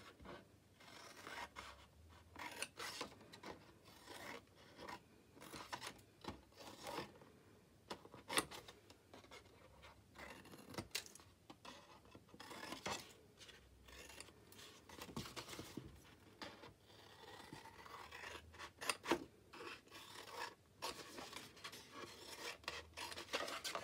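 Scissors snipping through patterned paper in a run of faint, irregular cuts, with some rubbing of the paper as it is handled.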